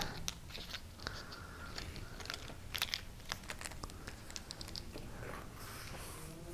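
Faint scattered clicks, taps and scrapes of a spice jar and metal measuring spoon being handled while garlic powder is scooped out.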